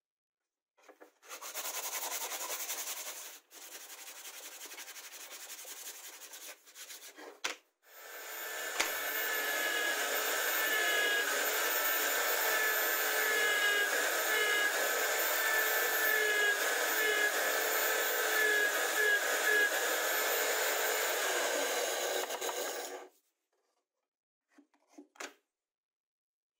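Compact router running steadily while cutting into plywood, with a high whine; it starts abruptly about eight seconds in and stops about fifteen seconds later. Before it come a few seconds of quieter noise from hand work, and near the end a few faint knocks.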